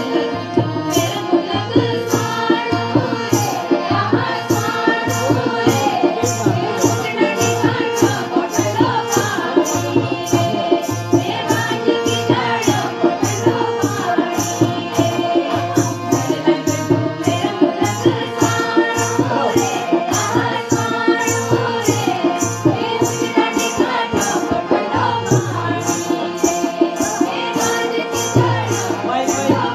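Dance music with a steady percussion beat of about two strokes a second and a winding melody line over it.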